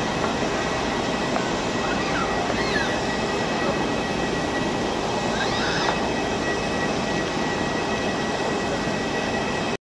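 Boeing 787-9 climbing out after takeoff, its Rolls-Royce Trent 1000 turbofans heard as a steady, even rush of jet noise. A few faint chirps come through about two and a half and six seconds in, and the sound cuts off suddenly near the end.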